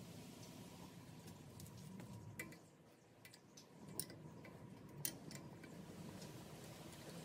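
Faint, scattered metallic clicks and ticks of a ratcheting wrench turning fittings on a steel power steering gearbox, the sharpest about four and five seconds in, over a low hum.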